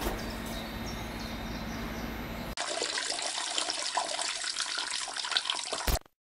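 A steady low hum, then, after a cut about two and a half seconds in, water rushing and splashing into a toilet bowl, which cuts off abruptly near the end.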